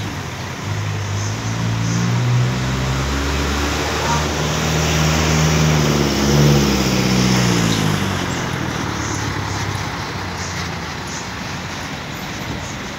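A heavy vehicle's engine running close by, loudest in the middle, its low note rising and falling before it fades, over steady street traffic.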